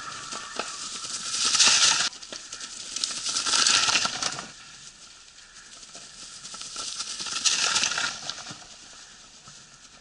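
Mountain bike tyres rolling and crunching through a thick layer of dry leaves on a forest trail, in three swells as riders come past, the loudest just under two seconds in, another about four seconds in and a third nearly eight seconds in.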